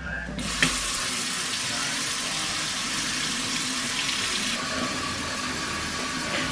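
Kitchen faucet turned on, water running steadily into a stainless steel sink, with a short click just after it starts. Past the middle the splash turns a little duller.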